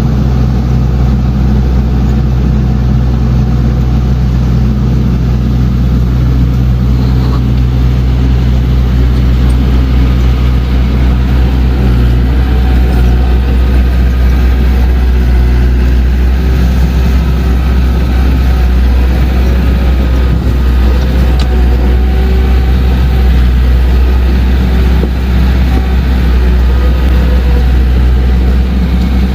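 Diesel engine of heavy earthmoving machinery running steadily under work, with a change in engine note about twelve seconds in.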